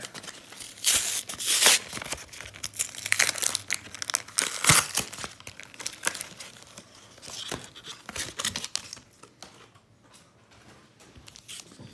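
Plastic blister packaging of a Pokémon trading-card double booster pack being torn open, with crinkling of the foil booster wrappers. The crackling tearing is loudest in the first few seconds and dies down near the end.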